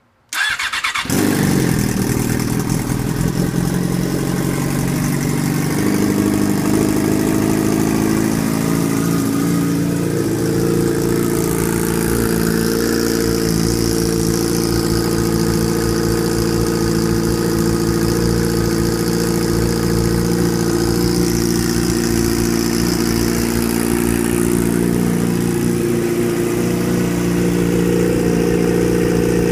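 Yamaha R6 sport bike's inline-four with a Coffman Shorty slip-on exhaust, cold-started: a brief crank, it catches within about a second, then idles steadily, its pitch shifting slightly about six and ten seconds in.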